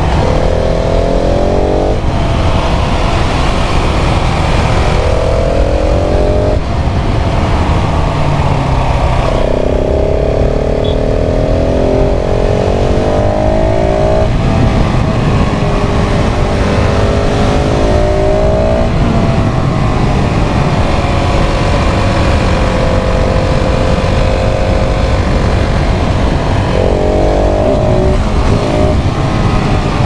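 KTM 690 SMC R's single-cylinder LC4 engine under way: the revs climb and drop back several times with gear changes and throttle, holding steadier for a while in the middle. Wind rushes over the microphone underneath.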